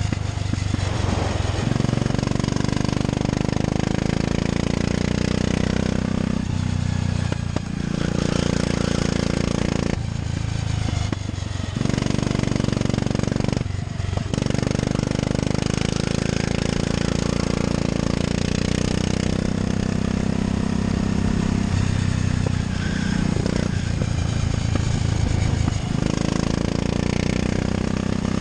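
A 13 hp go-kart engine heard from on board the kart, running hard at full throttle and falling away briefly about seven times as the driver lifts off for corners.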